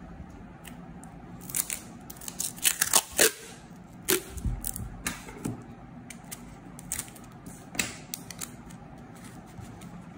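Clear packing tape peeled off the roll in a run of sharp crackling rips, loudest about two to three seconds in, followed by scattered snips and crinkles as scissors cut the strip and it is handled.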